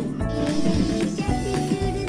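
Music from a TikTok dance track, with a steady beat about four times a second.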